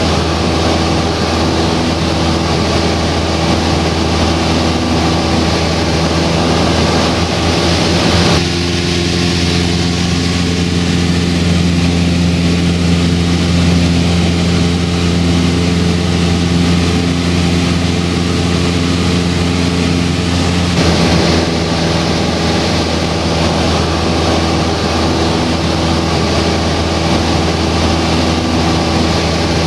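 Steady drone of a Cessna 172 Skyhawk's piston engine and propeller in cruise, heard from inside the cabin. The hiss above the engine note drops away for about twelve seconds in the middle while the low drone carries on unchanged.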